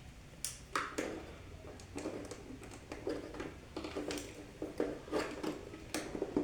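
Irregular light clicks and taps of hands handling electrical wires and switch fittings, about a dozen knocks spread unevenly.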